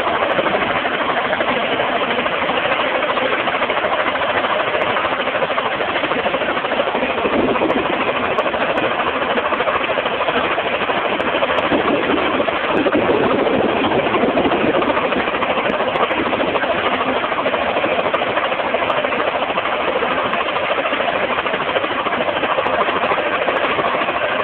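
A small helicopter running on the ground, its engine and rotor making a steady, loud noise.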